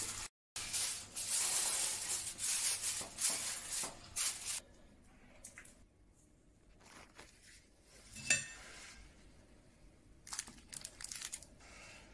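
Aluminium foil crinkling and rustling as it is pressed over a baking tray, for about four seconds. Then quieter, with a few faint rustles and one sharp click a little past the middle.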